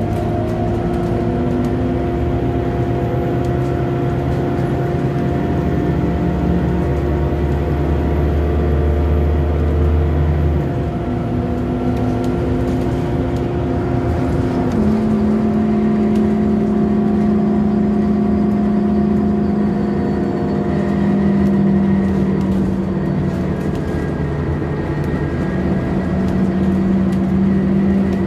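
Scania K230UB bus's five-cylinder diesel engine and ZF automatic gearbox heard from inside the saloon while under way: a steady drone with whining tones that jump to new pitches about 11 and 15 seconds in as the gearbox changes gear.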